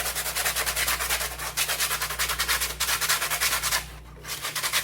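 Sandpaper rubbed by hand over a 3D-printed plastic helmet in quick, even back-and-forth strokes, about six a second, with a brief pause near the end.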